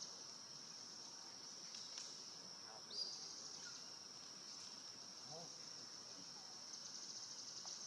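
Steady high-pitched chirring of insects, with one short rising chirp about three seconds in.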